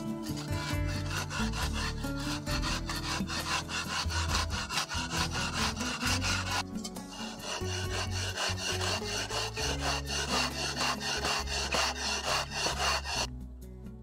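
A flat hand tool scraped rapidly back and forth along the curved edge of a soft firebrick, abrading it to shape, at about four or five strokes a second, with a short pause about halfway through.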